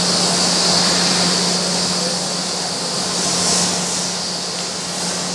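Steady machine hum with an even hiss from an OD (cylindrical) grinder's motors running idle.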